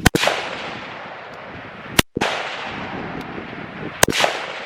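Three service rifle shots about two seconds apart, each sharp crack followed by a rolling echo downrange.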